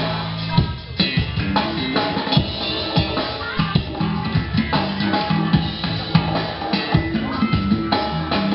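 A live band playing, with a drum kit hit throughout over guitar and a steady low line.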